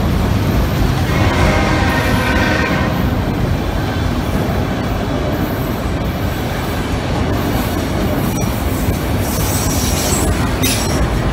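Freight train of multi-level autorack cars rolling past close by: a steady rumble of steel wheels on rail, with a high wheel squeal for a couple of seconds near the start.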